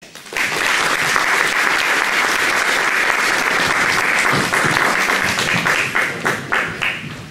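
Audience applauding: dense clapping that thins out to a few scattered claps near the end and dies away.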